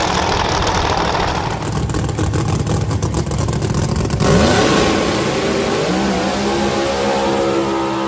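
Drag race cars' engines running loud and crackling at the starting line, then launching: the engine pitch climbs steeply as the cars accelerate away down the strip, getting fainter toward the end.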